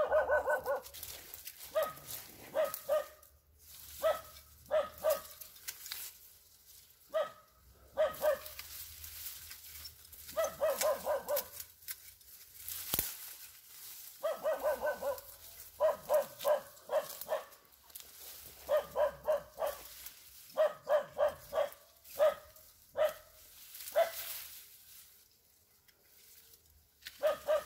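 A dog barking on and on, in runs of several quick barks every few seconds.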